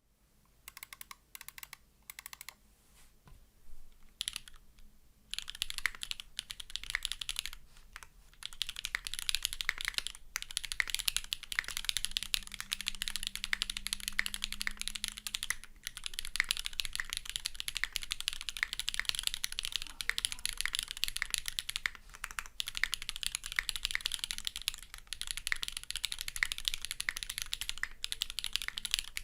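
Typing on a SINGA Kohaku gasket-mount custom mechanical keyboard with an aluminium plate, GEON Black linear switches lubed with Krytox 205g0, and GMK keycaps. A few scattered keystrokes at first, then steady fast typing from about five seconds in, with a couple of short pauses.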